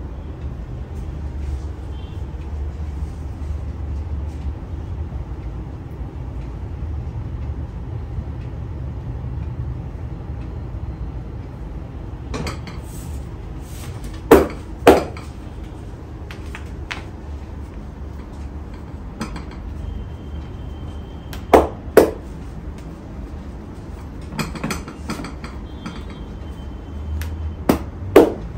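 A barber's hands landing sharp smacks during a head massage, mostly in pairs about half a second apart: once about halfway through, again a few seconds later and once more near the end, with a few fainter taps between. A steady low rumble runs underneath.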